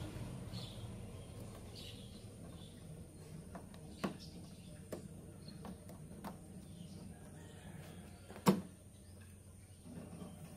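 Old rubber window weatherstrip being pulled off an Isuzu D-Max door by hand: a few light clicks, then one sharp snap about eight and a half seconds in.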